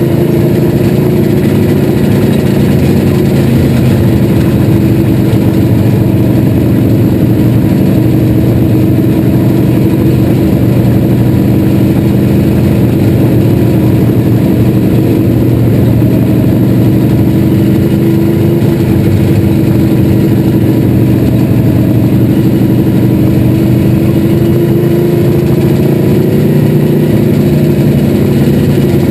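Dirt-track race car's engine, heard from inside the car, running loud and steady at moderate throttle. Its pitch sags slightly in the middle and climbs a little near the end.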